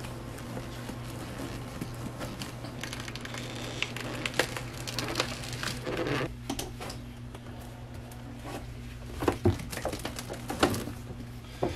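Plastic lid of a LiFePO4 battery case being pried loose by gloved hands: scattered creaks, clicks and short cracks as it works free, the larger ones past the middle, over a steady low hum.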